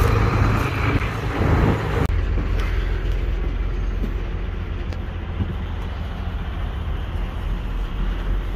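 Bus engine idling with a steady low rumble, heard first outside beside the bus and then, after about two seconds, more muffled from inside the cabin.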